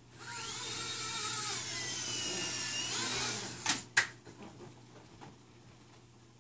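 mSR X micro RC helicopter's electric motor and rotor whining for about three seconds, rising in pitch as it spools up, holding, then falling as it comes down. Just after, two sharp knocks as the helicopter crashes.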